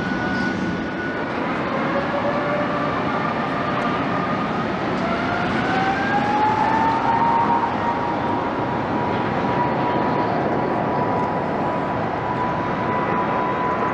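Jet airliner engines running, a steady roar with a whine that rises over a few seconds and then holds steady.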